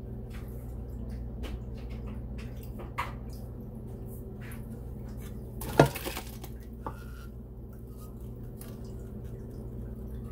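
A plastic strainer and spatula clinking and knocking against a metal pot in a sink as blended green juice pulp is strained and pressed, with one sharp knock a little before six seconds in. A steady low hum runs underneath.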